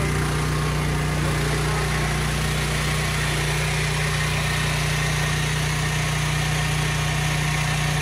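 DS13000E 13,000-watt portable generator engine running steadily at a constant speed.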